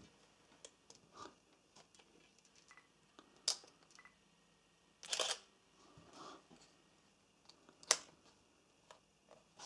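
Nikon D3100 DSLR being tested after a flash repair: a sharp click as the pop-up flash springs up, then the shutter and mirror firing about halfway through, and another sharp click as the flash head is pushed shut near the end, with faint handling clicks between.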